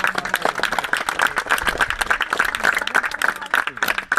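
Crowd of spectators applauding, many hands clapping at once.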